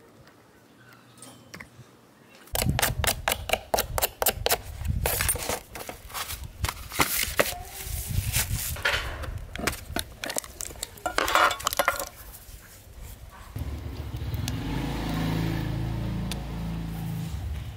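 Hard metal and plastic parts clicking and clattering as they are handled, then a steady low electric-motor hum from the restored pedestal fan running for the last few seconds.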